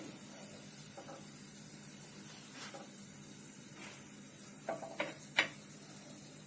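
Oil sizzling faintly and steadily in a frying pan as unnakkaya shallow-fry in a little oil on a low flame. Three light clicks come close together a little under five seconds in.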